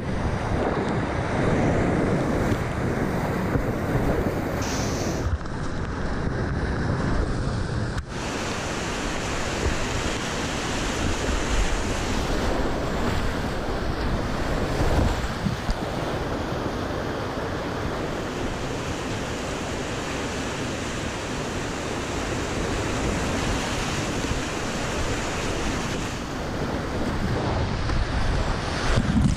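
Whitewater rapids rushing close around a kayak as it runs down through them: a continuous, loud churning rush of water.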